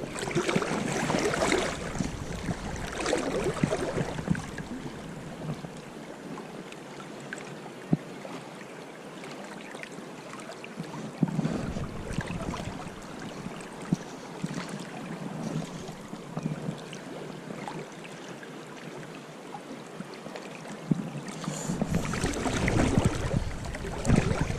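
River water flowing and rippling around the wading angler, the river running a little high and heavy. Gusts of wind buffet the microphone at the start, around halfway and near the end, with a few sharp ticks between.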